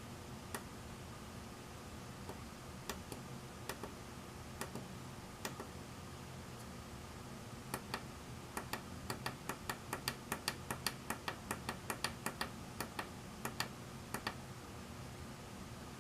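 Small pushbuttons on an oscilloscope clock kit clicking as the time is set: a few separate presses, then a quick run of about three or four clicks a second for several seconds, over a faint steady electrical hum.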